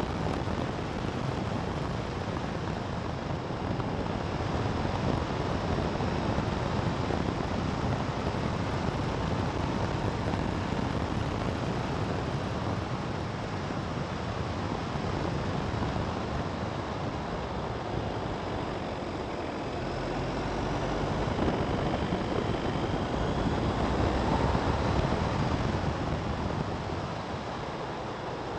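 Steady wind rush buffeting the microphone of a camera travelling along a road at about 55–75 km/h, with no clear engine note heard.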